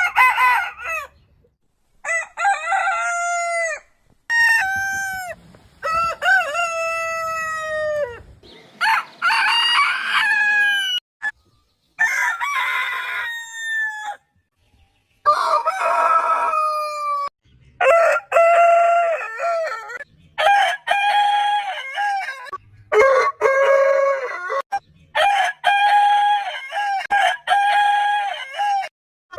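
Roosters crowing one crow after another: about a dozen separate cock-a-doodle-doo calls, each a second or two long, with short silent gaps between them. The pitch and shape vary from crow to crow.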